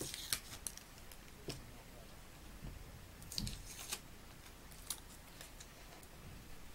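Faint, scattered light clicks and taps of metal safety pins and beads knocking together as a beaded safety-pin bracelet is handled and its thread worked, with a cluster of sharp clicks at the start that fits a scissor snip.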